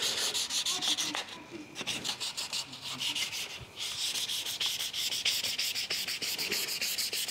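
Sandpaper rubbed by hand back and forth over a hydrofoil wing in quick repeated strokes, smoothing down filled scratches, with short breaks about a second and a half in and near four seconds.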